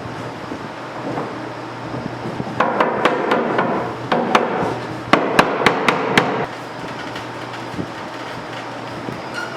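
Sharp knocks in two runs of about three a second, over a rougher scraping noise, as wooden dresser parts and clamps are worked together in a glue-up.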